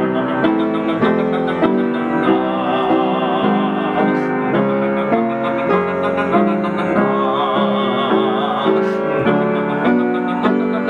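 Upright piano playing repeated chords about twice a second, moving step by step through a vocal warm-up exercise, with a man singing the warm-up along with it on "num".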